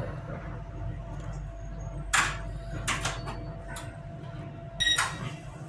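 Tyne and Wear Metro train heard from inside the car while running between stations: a steady low rumble of wheels and motors with a faint steady hum. Several short, sharp clacks and hisses come a couple of seconds in, and a brief electronic beep sounds near the end.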